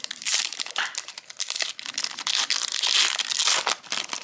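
Foil trading-card pack wrapper crinkling and crackling as gloved hands tear it open, a dense run of crackles that is loudest about three seconds in.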